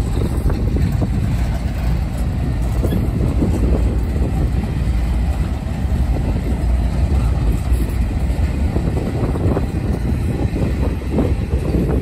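Freight train's boxcars and tank car rolling past on steel wheels: a steady, heavy rumble of the wheels on the rails.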